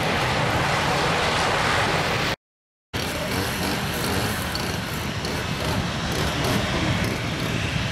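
Airliner engines running on the runway: an ATR 72-600's PW127 turboprops as it rolls along, then, after a half-second gap in the sound, a Boeing 737-700's CFM56 turbofans running steadily as it taxis slowly.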